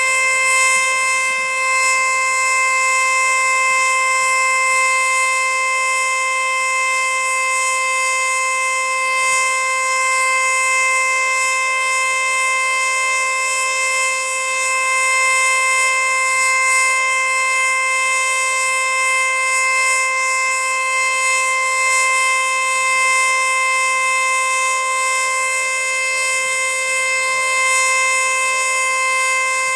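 Federal Signal Eclipse-NH electronic warning siren sounding its steady full-alert tone: one loud, unwavering pitch rich in overtones, held without rising, falling or pulsing.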